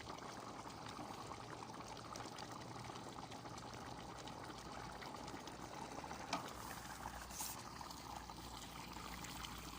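A pot of goulash simmering in a cauldron over a fire, with a steady bubbling hiss and a few faint ticks.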